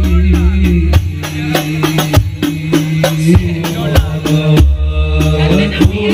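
Hadrah ensemble playing sholawat: rebana frame drums beat a quick, dense rhythm over deep drum strokes, while a man sings in ornamented, wavering lines.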